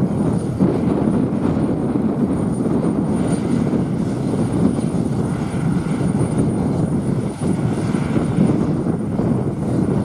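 Yenisei 1200-1 combine harvester's engine and threshing machinery running steadily under load while it harvests barley. The sound is a loud, even mechanical drone.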